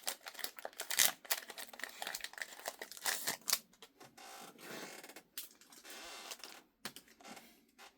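Crinkling of a foil booster-pack wrapper and rustling of trading cards being handled: a run of sharp crackles and clicks, then short rustles in the second half.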